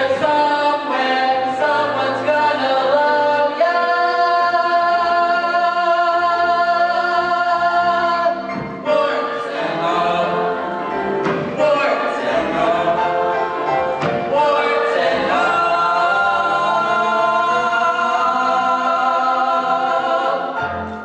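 A stage-musical cast singing together in chorus over backing music, with long held notes, ending on a sustained final chord near the end.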